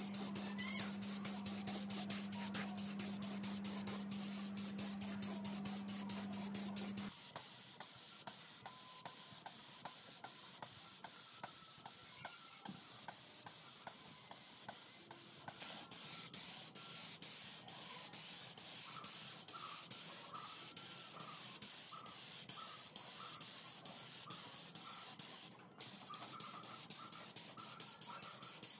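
Gravity-feed paint spray gun spraying, a steady hiss of compressed air and atomised paint. A steady low hum sits under it for the first several seconds and stops abruptly. The hiss then falls away for several seconds and comes back strongly about halfway through.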